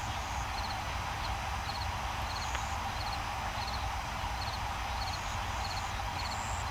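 A steady noise bed: a low rumble under a hiss, with a faint high chirp repeating about every two-thirds of a second.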